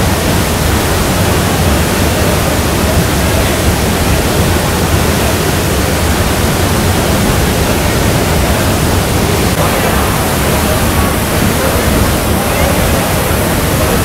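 Waterfall in spate after heavy cyclone rain, a loud, steady rush of falling floodwater.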